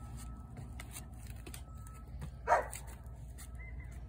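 A single short, loud animal call about two and a half seconds in, over a faint steady low hum.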